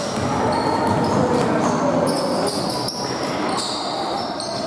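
Basketball being played on an indoor court: a ball bouncing with a few sharp knocks, shoes squeaking in short high chirps, and a murmur of voices in the hall.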